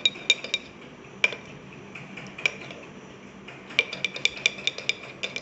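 Metal spoon clinking against a ceramic bowl while stirring a thick face-pack paste, in irregular light taps: a few at the start, single ones at about one and two and a half seconds in, then a quick run of taps near the end.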